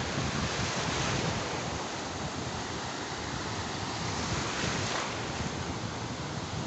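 Sea surf breaking and washing up over the sand at the water's edge, swelling about a second in and again around five seconds, with wind buffeting the microphone.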